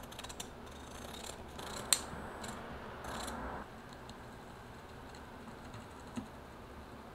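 Scissors cutting through a paper tea bag filled with dried herbs: a run of crisp snips and crunching, the sharpest snip about two seconds in, stopping a little after three seconds. After that only a faint steady hiss with one small click.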